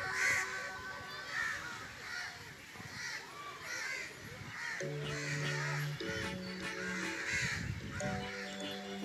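Crows cawing over and over, short harsh calls about one a second. Background music with long held notes comes in about five seconds in.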